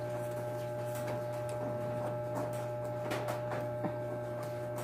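A steady electrical hum with faint, scattered clicks and smacks of people chewing food.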